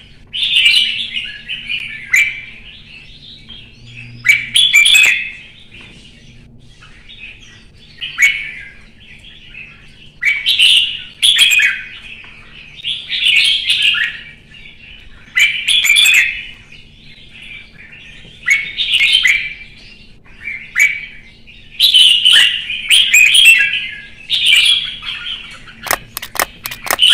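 Caged red-whiskered bulbul singing: short, bright, warbling phrases repeated every two seconds or so with brief pauses between. A few sharp clicks come near the end.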